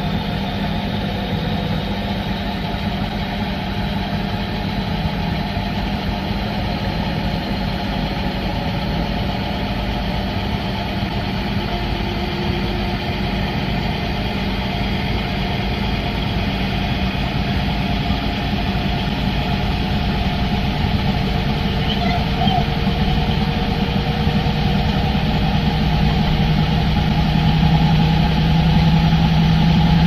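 Washing machine drum on its spin cycle, heard from inside the drum: a steady hum and rumble that rises slowly in pitch and gets louder as the spin speeds up from about 600 toward 750 rpm.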